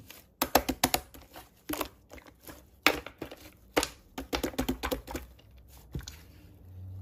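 Soft pink slime being squeezed and stretched by hand, giving off irregular sticky clicks and crackles.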